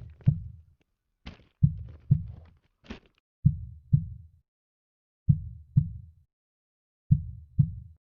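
Heartbeat sound effect: pairs of low thumps about half a second apart, repeating roughly every two seconds, with a few sharp clicks in the first three seconds.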